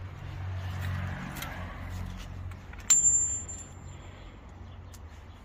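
A single sharp metallic clink about three seconds in, ringing on as one high, thin tone that fades over about a second and a half: a small steel part, such as one of the new wheel bearing bolts, struck against metal. A low steady hum sits underneath through the first half.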